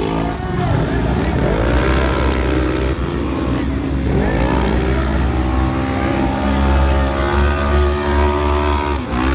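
Several UTV race engines running at once, their pitch rising again and again as they accelerate and overlapping one another, then holding steadier in the second half.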